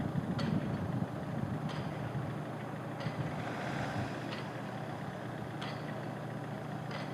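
Steady low machinery drone, engine-like, with a faint sharp tick repeating about every second and a half.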